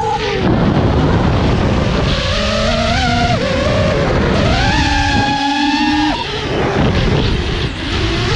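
FPV multirotor's brushless motors whining, recorded from the camera on board, the pitch jumping up and down in steps as the throttle changes, with wind rush over the mic. The level dips briefly twice near the end, when the throttle is chopped.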